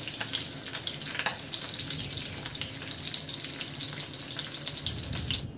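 Taki fish (spotted snakehead) sizzling in hot mustard oil: a steady hiss with scattered sharp crackles as the fried pieces are lifted out. It cuts off abruptly near the end.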